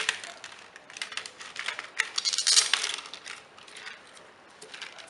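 A run of light clicks and clatter from small hard objects, with a short rustling stretch a little over two seconds in.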